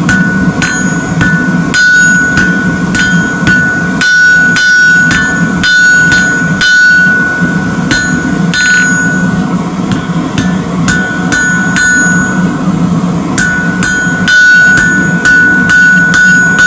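Hand hammer striking hot steel rebar on an anvil, about two to three blows a second with a short pause about ten seconds in; the anvil rings between blows while the bar's end is drawn out to a taper. A steady low hum runs underneath.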